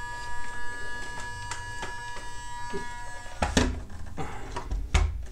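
Steady high-pitched electric whine from the RC compactor's small electric drive motors, which cuts off about three seconds in. Then come several dull knocks and clacks as the plastic model is handled on the workbench.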